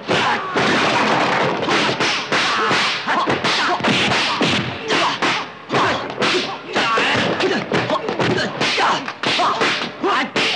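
Kung fu film fight sound effects: a fast, irregular run of dubbed punch and kick impacts and whip-like swishes, several a second.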